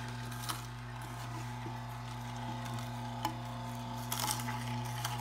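Omega J8006 masticating juicer running with a steady, quiet motor hum as its slow auger crushes celery. A few short, sharp crackling clicks stand out over the hum.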